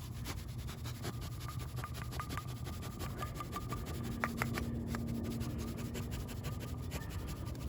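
Flocking applicator being worked to puff flock fibres into a glued box interior: soft, fast, even rubbing and puffing, with a few light clicks about halfway through.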